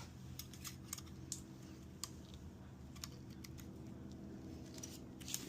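Light, scattered clicks and ticks of small metal engine parts being handled as piston rings are fitted onto a piston, over a steady low hum.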